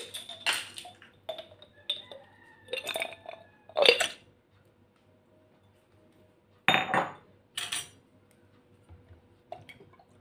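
Ice cubes being added to a glass tumbler, clinking against the glass in a series of separate sharp clinks. There is a quiet gap of a couple of seconds just after the middle.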